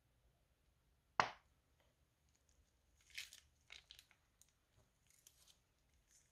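A plastic piping bag squeezes runny green slime into a bowl of wet slime. There is one sharp squelch about a second in, then a run of soft crackly squelches and plastic crinkles from about three to five and a half seconds in.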